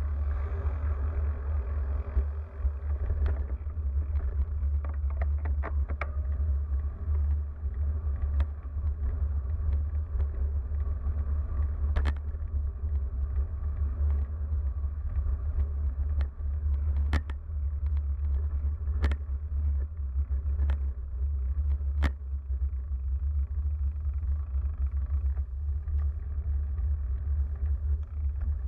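Steady low rumble of wind and road noise on a bicycle-mounted action camera's microphone while riding, with a few sharp knocks scattered through it.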